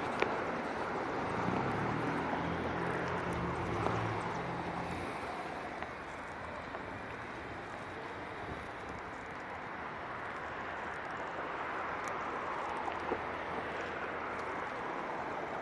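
Outdoor street traffic noise, with a vehicle engine's low hum for the first few seconds and a few light sharp taps.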